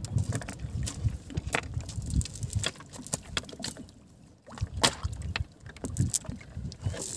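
Irregular clicks and knocks of a cast net being handled on a wooden boat deck, over a low rumble, with a brief lull about four seconds in.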